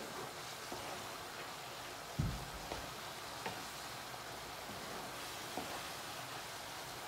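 Shredded cabbage frying in a non-stick pan, a steady sizzling hiss, as it is stirred with a wooden spatula. There are a few light knocks of the spatula against the pan, the loudest about two seconds in.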